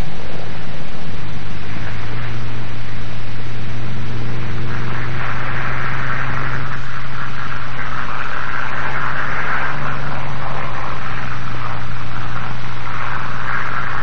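North American P-51 Mustang's V-12 engine droning as the fighter runs along the runway, swelling in places, under the heavy hiss of an old film soundtrack.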